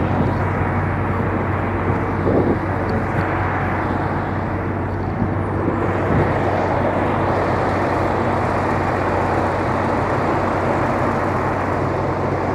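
Heavy diesel truck engines running steadily, a constant low drone, as the trucks' hydraulic knuckle-boom cranes are worked.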